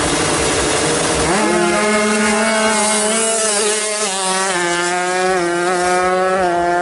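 Tuned two-stroke Kawasaki Ninja 150 drag bike engine: rough uneven revving, then about a second and a half in it jumps to a high steady scream at full throttle, dipping briefly in pitch a few times.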